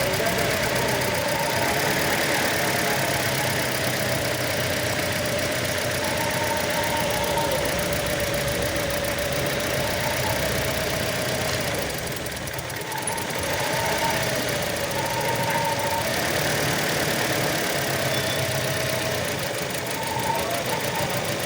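Toyota Corolla engine running steadily at idle, with a faint wavering whine over the mechanical drone; the level dips briefly a little past halfway.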